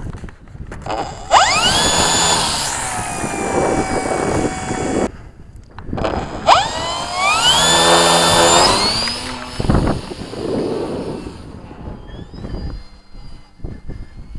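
Multiplex FunCub model plane's electric motor and propeller run up twice to full throttle. Each time a high whine rises quickly in pitch, holds for about three seconds, then cuts off. A fainter, thinner motor whine follows near the end.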